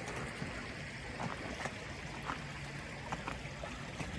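Spring water trickling and splashing out of drainage pipes, with a steady rushing noise underneath and scattered small splashes.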